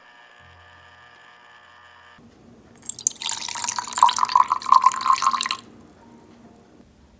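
Lime juice poured in a thin stream into a glass jug, a liquid pour starting about three seconds in and lasting about two and a half seconds before stopping.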